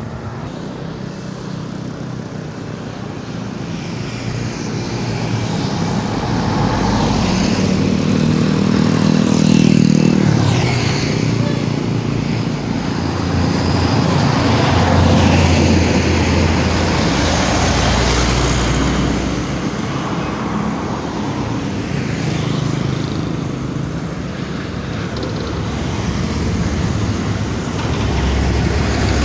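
Highway traffic: large vehicles passing one after another, their engine and road noise swelling and fading in waves.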